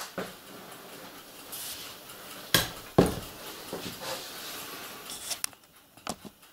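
Scattered light clicks and knocks of small items being picked up and set down on a worktable, the two loudest close together about halfway through.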